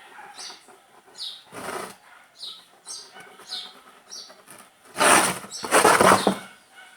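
A bird chirping repeatedly, short falling chirps about twice a second. Twice a loud rasping scrape cuts across it, briefly about a second and a half in and longer, the loudest sound, from about five to six seconds in.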